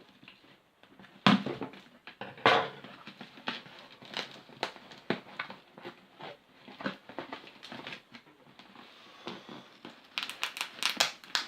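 Packaging being handled: plastic and cardboard crinkling and rustling, with two sharp knocks about a second and two and a half seconds in, and a quick run of crackling near the end.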